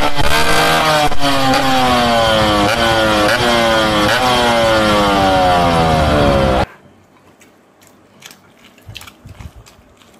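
Loud engine-like revving sound whose pitch falls again and again and jumps back up about twice a second. It cuts off suddenly about two-thirds of the way through, leaving faint clicks.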